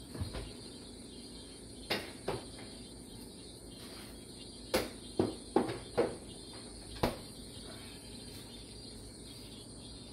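About eight sharp kitchen knocks and clicks: one near the start, two about two seconds in, and a quick run of five between five and seven seconds in. Under them runs a steady, faint, high-pitched whine.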